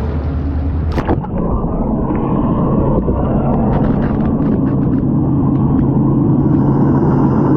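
Muffled low rumble of water with the microphone submerged beside a boat's hull, after a knock about a second in; small ticks and faint steady low tones run through it.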